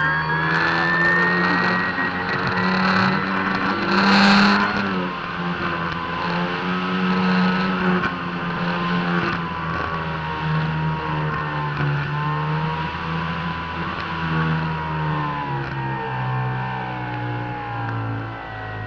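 Electric motor and propeller of an E-flite Mystique 2.9M RES sailplane running in flight, heard up close on board: a steady whine whose pitch drifts up and down, over wind rushing past. A brief, louder rush of wind comes about four seconds in.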